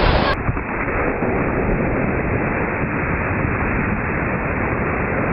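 Ocean surf breaking and washing up the beach close by: a steady rush of water.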